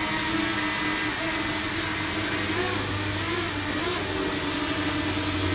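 A motor running steadily with a constant whine over a hiss.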